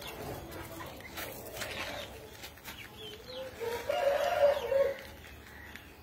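Aseel rooster crowing once: a single crow of about a second and a half, a little past the middle, rising and then held.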